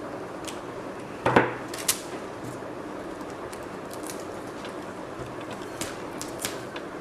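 Hands working a roll of adhesive tape around a rolled-newspaper form: scattered small clicks and rustles, with a louder sharp sound a little over a second in and another just before two seconds.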